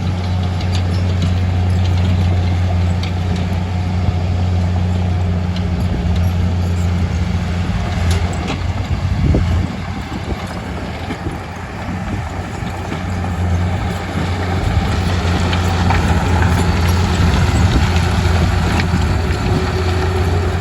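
Heavy diesel engine running steadily with a low drone, easing off about ten seconds in and picking up again a few seconds later.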